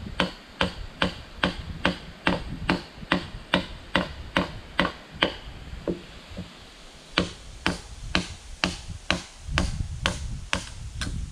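Steady, evenly spaced blows of a hand tool on wood, a little over two a second, with a pause of about a second and a half midway before the blows resume: the ridgepole log being knocked down onto the top of a wooden end post.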